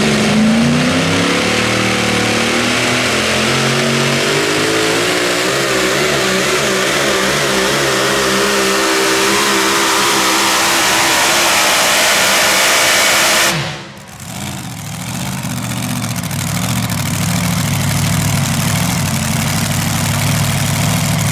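A super modified four-wheel-drive pulling truck's engine running at full throttle, its pitch climbing over the first few seconds and then holding high and wavering. About fourteen seconds in it cuts off suddenly. An engine then runs more steadily at a lower pitch.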